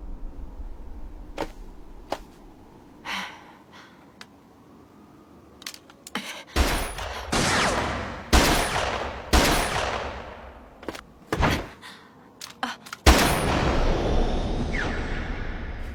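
Animated battle sound effects. A few sharp knocks and clicks come first, then from about six seconds in a run of loud blasts roughly a second apart, each trailing off in a long noisy fade. After a few more clicks, one last and loudest blast comes about three seconds before the end and fades slowly.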